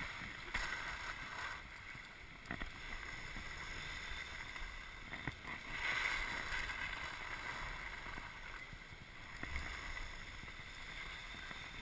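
Skis sliding and turning on snow during a descent, a steady hiss that swells about six seconds in, with a single click near the start.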